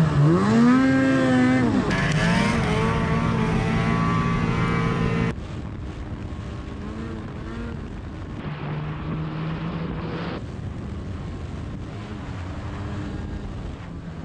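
Ski-Doo snowmobile engine revving up and down under throttle while riding, heard from the seat. Several short clips are spliced together, and after about five seconds the engine is quieter and steadier.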